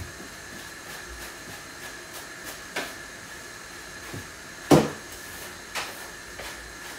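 A broom sweeping a tiled floor over a steady hiss, with a few light knocks and one sharp, much louder knock a little past halfway.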